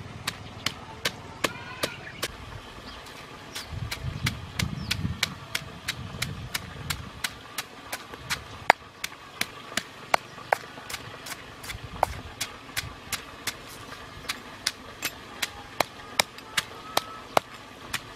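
Stone pestle pounding red chilies and garlic in a stone mortar: a steady beat of sharp knocks, about three strikes a second.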